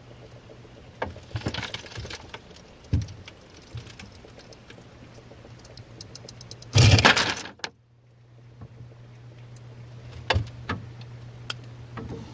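Freezer ice maker harvesting: scattered clicks and cracks as the cubes work loose from the mold, then, about seven seconds in, a loud clatter about a second long as the ice drops into the bin. A steady low hum runs underneath, with a few more clicks near the end.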